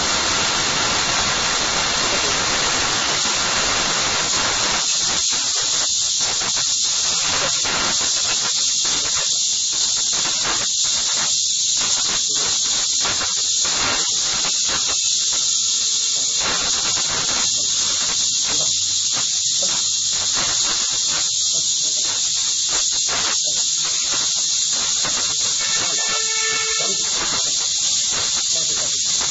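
Steady, loud hiss of recording noise, with many irregular short knocks or crackles underneath from about five seconds in and a brief pitched tone near the end.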